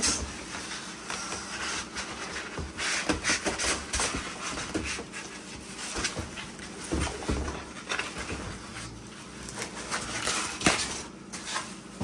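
Irregular rustling and handling noise, with scattered soft knocks, from fan parts and packaging being pulled out of a cardboard box.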